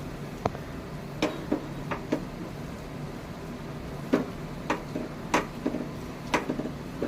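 A spatula knocking and scraping against a cooking pan as boiled potatoes are mashed and mixed with dabeli masala, giving about ten irregular, sharp knocks.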